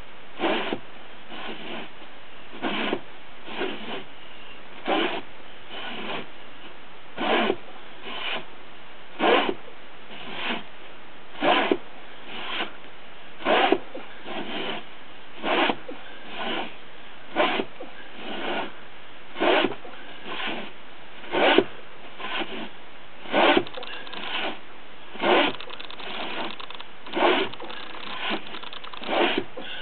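Two-man crosscut saw (misery whip) cutting through a log on a trail, rasping in steady back-and-forth strokes about once a second, every other stroke louder.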